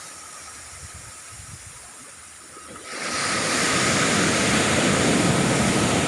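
Big ocean surf: a low rumble of the sea, then about halfway through a breaking wave sets in as a loud, even rush of white water.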